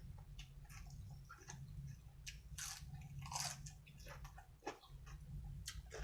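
A person chewing and crunching mouthfuls of food, with irregular crisp bites, over a steady low rumble.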